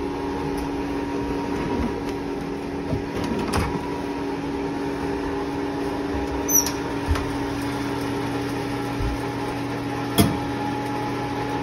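Steady hum of a kitchen appliance running. About halfway through the oven door of a range is opened with a short squeak, and near the end there is a knock as a glass bowl of dough is set on the oven rack.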